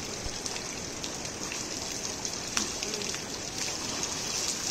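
Steady hiss of running water, with a few faint clicks and faint distant voices.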